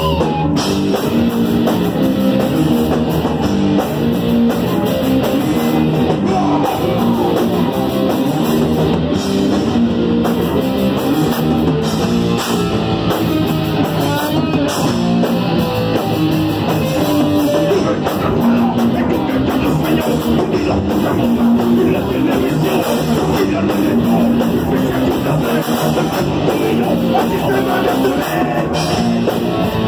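Punk rock band playing live: electric guitar and drum kit, with shouted vocals.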